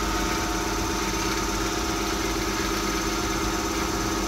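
Thyristor-controlled DC motor, coupled to a tacho-generator and a mechanical loading arrangement, running steadily at about 1000 rpm with a steady hum and a higher whine, while it is loaded toward 5 amps.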